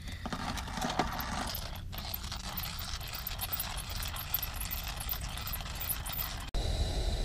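Hand-cranked coffee grinder grinding beans: a fast, continuous crackle of clicks. It stops abruptly about six and a half seconds in, and a steady high insect trill takes over.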